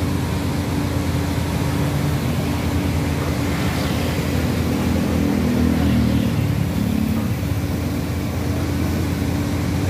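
Komatsu hydraulic excavator's diesel engine running steadily, its note shifting a few times midway as the boom and bucket move under hydraulic load.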